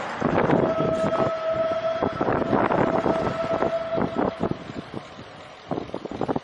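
Bicycle rattling as it rides over uneven ground, with a steady squeal that holds one pitch from about half a second in until about four and a half seconds. The rattling thins out near the end.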